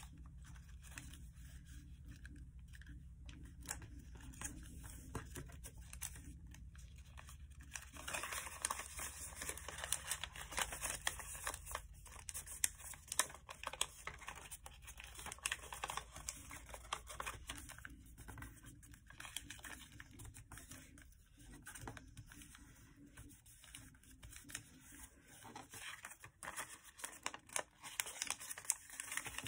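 A sheet of paper being folded and creased by hand: paper rustling and crinkling. It stays faint for the first several seconds, then from about a quarter of the way in turns busier, with crisp crackles as the creases are pressed.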